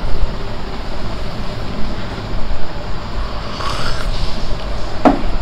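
Steady background noise with a low hum and no clear pitched source, and a short sharp sound near the end.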